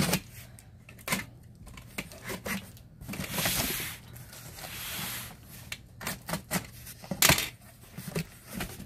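Box cutter slitting the packing tape on a large cardboard box, with scraping and rasping as the blade runs along the seams. Cardboard flaps knocking and rustling as they are pulled open, with several sharp knocks near the end.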